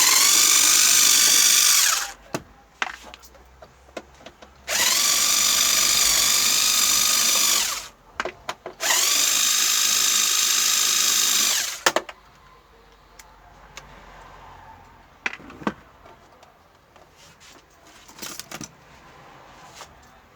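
Cordless electric screwdriver running in three spells of a few seconds each, winding up and down, as the screws of the TV's back cover are driven out. Small clicks and knocks of handling follow.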